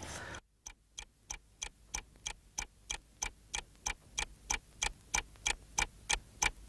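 Steady ticking like a clock, about three even ticks a second, growing a little louder toward the end.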